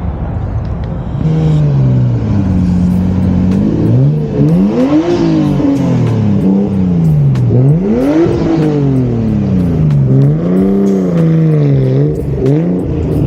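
Car engine being revved, rising and falling in pitch several times after starting about a second in.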